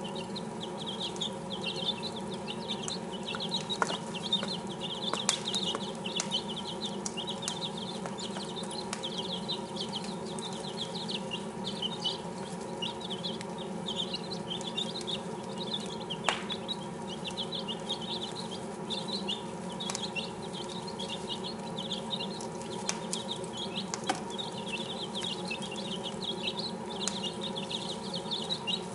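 A brood of six-day-old chicks peeping continuously, many quick high peeps overlapping without pause. A steady low hum runs underneath, and a few sharp clicks stand out.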